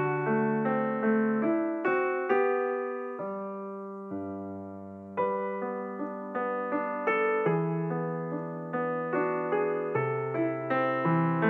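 Background solo piano music: notes and chords struck at an easy pace, with one chord left to ring out and fade for a few seconds midway.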